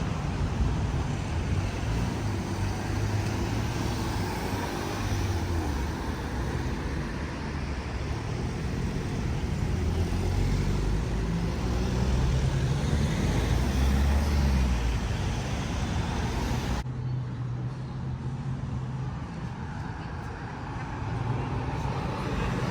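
City street traffic: motor vehicles running and passing, a steady rumble of engines and tyres. The higher hiss drops away abruptly about seventeen seconds in, leaving a lower rumble.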